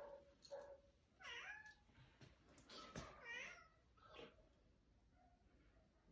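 Domestic cats meowing faintly, about five short calls that rise and fall in pitch.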